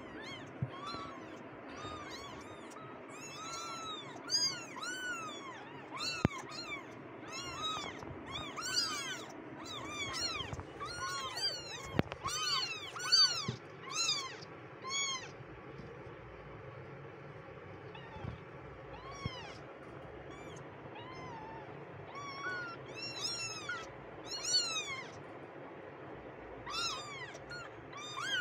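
A litter of very young kittens mewing: many short, high-pitched cries that rise and fall, often overlapping, with a lull of only a few cries in the middle stretch. Two sharp clicks stand out, one about six seconds in and one about twelve.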